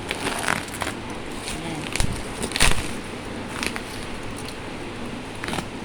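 Thick plastic bubble wrap being handled and pulled away, with irregular rustling and crinkling throughout. A dull thump comes about two seconds in, followed by the loudest crackle just after.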